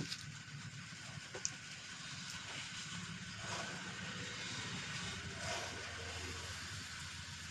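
Steady low background rumble with faint rustling of hands on rubber, and one small sharp click about one and a half seconds in.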